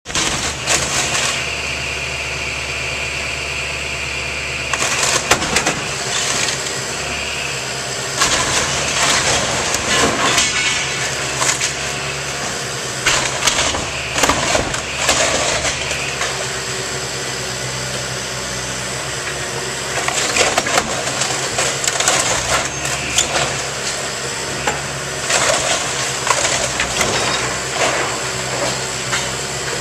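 Excavator bucket tearing through a garage's shingled roof: wood and roofing cracking, splintering and crunching in repeated bursts, over the steady run of the excavator's engine.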